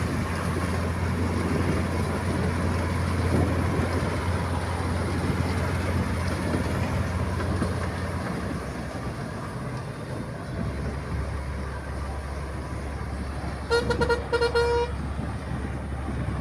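Combine harvester running steadily as it cuts wheat, its low engine hum dropping in pitch about halfway through. About fourteen seconds in, a vehicle horn gives a quick stutter of short toots lasting about a second.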